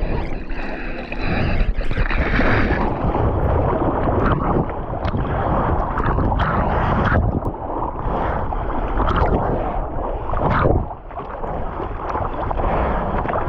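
Wind buffeting the microphone over rushing, splashing water while being towed behind a motorboat, with a short lull just before the end.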